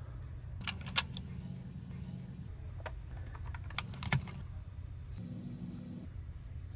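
Sharp clicks and taps of computer hardware being handled during assembly, in a cluster about a second in and another around four seconds, over a steady low hum.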